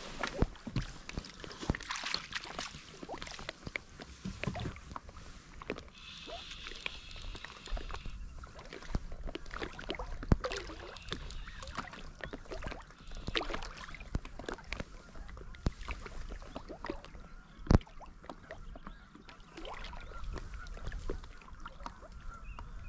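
Geese honking repeatedly, their calls coming in short bouts. Sharp clicks and knocks sound close by throughout.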